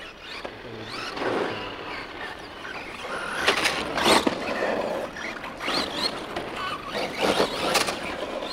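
Two 1/10 brushless RC monster trucks, a Pro-Line Pro-MT and an ECX Ruckus, accelerating down tarmac, their electric motors whining and rising and falling in pitch with the throttle over the tyre noise. Short louder bursts come about three and a half to four seconds in and again around seven seconds in.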